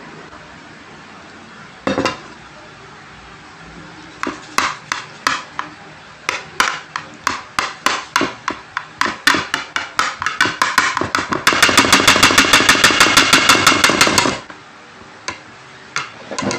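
Metal spoon tapping and scraping against a plate of food, single clinks that come faster and faster and turn into a rapid, loud clatter for about three seconds before stopping abruptly.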